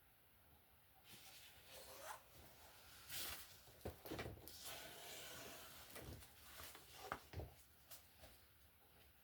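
Faint handling noises: irregular rustling and rubbing, with a few light knocks.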